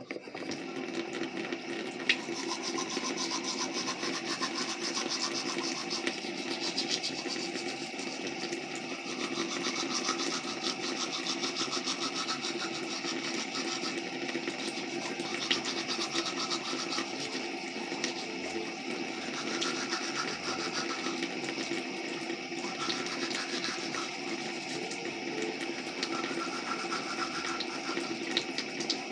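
Battery-powered toothbrush buzzing steadily while brushing teeth; the buzz starts suddenly and runs on evenly.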